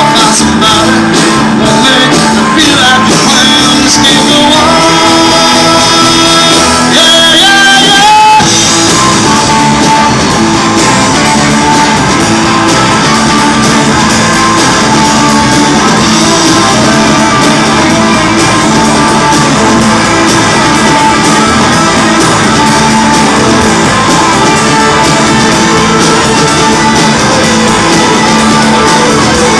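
Live rock band playing loud: electric guitars over drums, amplified in a hall, with a held note and a pitch bend about seven to eight seconds in.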